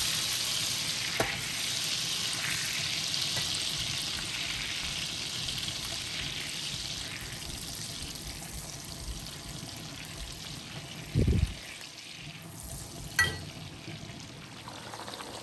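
Two sticks of butter sizzling as they melt in a hot pot, the sizzle slowly dying down as the butter melts; a dull knock about eleven seconds in.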